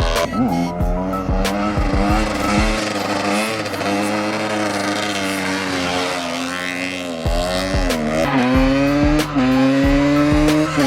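2003 GasGas EC 250 two-stroke engine with a Pro Circuit full exhaust, revving, its pitch dipping and climbing again several times as the throttle is worked. Background music with a steady beat plays alongside.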